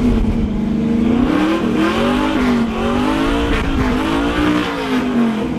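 Muscle truck's engine being revved through its exhaust, its pitch rising and falling several times in a row.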